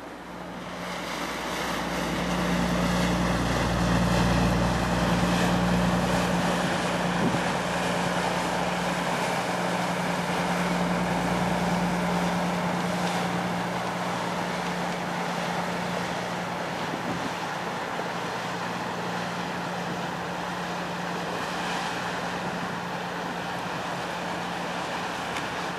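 An engine running with a steady low hum, swelling over the first couple of seconds, loudest around four to six seconds in, then slowly easing off.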